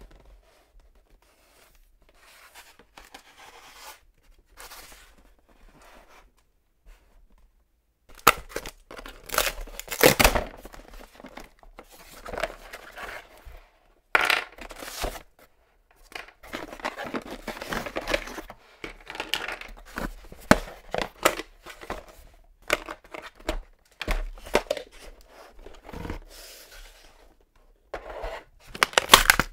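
Cardboard toy box being torn open and its packaging rustled and crumpled, mixed with sharp clicks and knocks of plastic toy parts being handled. The first several seconds hold only faint handling, and the loud tearing and rustling start about eight seconds in.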